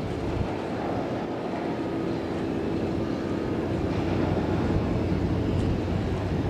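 Fast customs patrol boat under way at speed: a steady engine drone over rushing wind and water, slowly growing louder.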